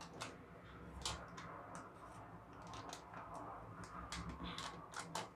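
Faint crinkling and scattered light clicks of a plastic sachet being opened and its powder tipped into a glass bowl.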